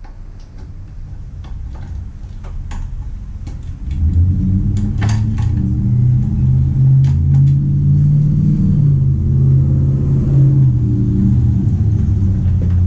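A loud, low mechanical rumble with a steady hum that builds over the first four seconds and then holds, with scattered small clicks over it.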